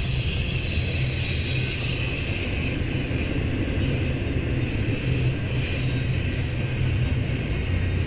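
Double-stack intermodal freight train's container-laden well cars rolling past, a steady low rumble of steel wheels on rail.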